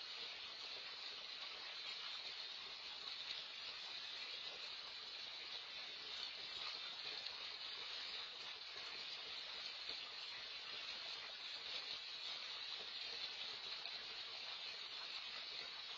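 Steady, even hiss of background noise, strongest in the upper range, with no separate splashes or other distinct events.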